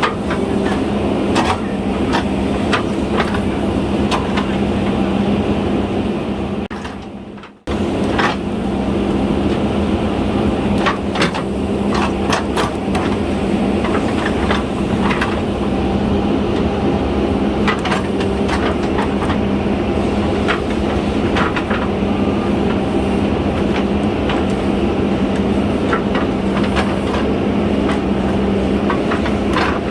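JCB 3DX Super backhoe loader's diesel engine running steadily at working revs, with frequent sharp knocks and clanks from the machine at work digging and pushing soil. About seven seconds in the sound fades and drops out for a moment, then returns at once.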